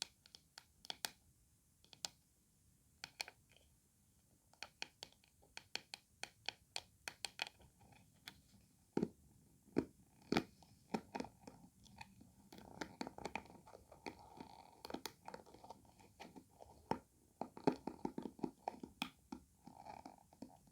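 Close-up tapping on a comb: irregular sharp clicks. About twelve seconds in, denser crackly scratching joins the taps.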